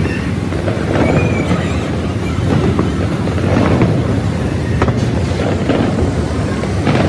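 A large fireworks display going off: a dense, continuous low rumble of explosions with a sharp crack about five seconds in.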